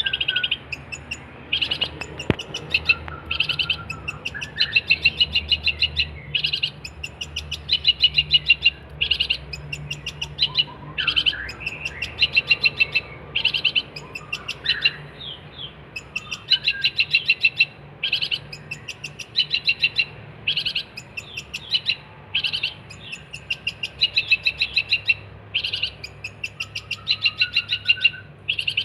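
Long-tailed shrike (cendet) singing vigorously: a long series of short bursts of rapid, high, rattling notes, about one burst every second or two, with occasional lower sliding whistles between them.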